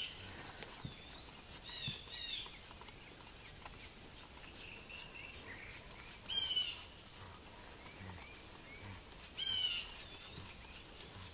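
Small birds chirping now and then over faint outdoor background noise, the clearest chirp about six and a half seconds in.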